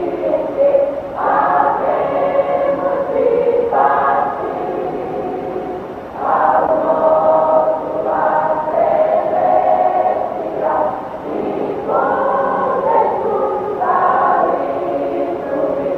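Mixed choir of men and women singing a hymn together in sustained phrases.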